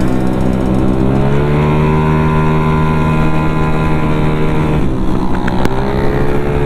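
A motor scooter's engine running at steady high revs under way, with wind rush on the microphone. The pitch lifts slightly early on, dips briefly about five seconds in, then climbs again.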